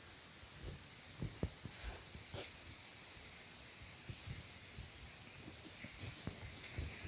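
Irregular soft knocks, taps and scrapes from under a wooden deck, the strange noise of an unseen animal moving about below, over a steady faint hiss.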